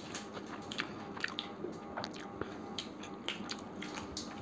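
Two people eating biryani with their hands: chewing and occasional crunches, with small irregular clicks as fingers mix the rice on their plates.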